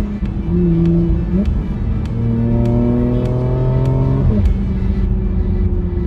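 The Porsche Macan GTS's turbocharged V6, heard from inside the cabin in paddle-shift manual mode. It revs up through a gear, its pitch rising for about two seconds, then drops sharply a little past the middle as it shifts up.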